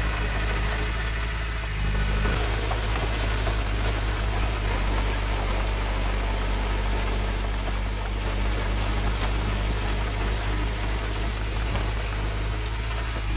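Diesel engine of heavy earthmoving machinery running steadily, its note shifting and getting a little louder about two seconds in.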